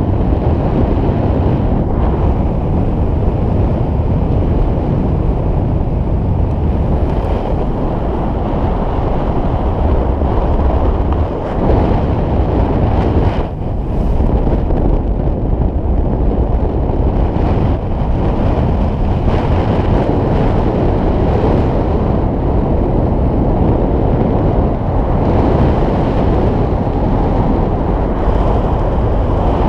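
Wind rushing over the camera microphone of a paraglider in flight: loud, steady wind noise, heaviest in the low end, briefly easing twice around the middle.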